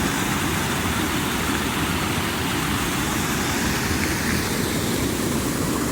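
Steady, even rush of falling water from a waterfall and creek.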